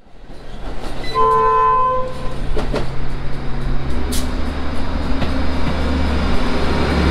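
A subway train's horn sounds once for about a second, a two-note chord, over the steady rumble of the train running on the track, with scattered clicks of wheels on rail. The sound fades in over the first second.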